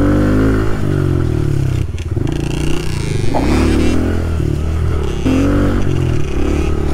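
Small off-road dirt bike's engine running under load while being ridden, its pitch rising and falling repeatedly as the throttle is opened and closed, with some clatter from the bike over the rough ground.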